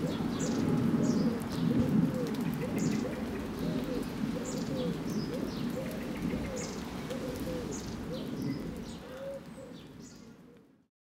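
Garden birdsong: a pigeon cooing in short, repeated low phrases, with small birds chirping high above it over a steady background hiss. The sound fades out over the last second or so.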